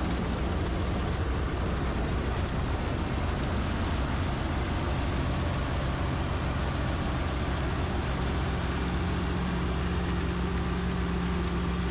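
PREET 4949 Maestro combine harvester running steadily, a diesel engine drone with a low hum and a broad machinery rush over it; a steady low tone grows stronger about eight seconds in.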